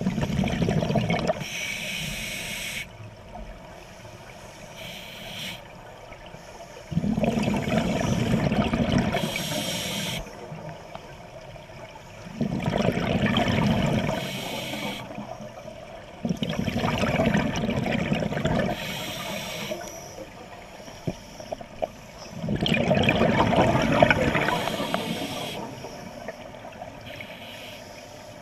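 Scuba regulator breathing underwater: about five breathing cycles, each a loud rushing gurgle of exhaled bubbles and a shorter hiss of air drawn through the regulator.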